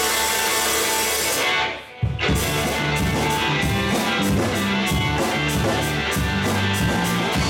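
Live rock band playing, led by electric guitar. The music breaks off briefly about two seconds in, then the full band comes in hard with bass and drums on a steady beat.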